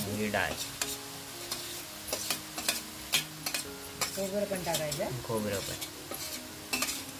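Steel spoon clinking and scraping against a steel plate and pan as soaked split dal and grated coconut are tipped into greens frying in oil, with a steady sizzle underneath.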